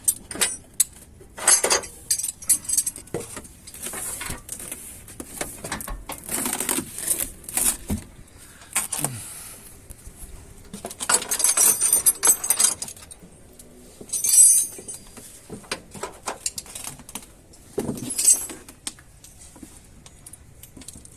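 Metal tools and parts clinking, rattling and scraping in irregular bursts as hand work goes on refitting a car alternator.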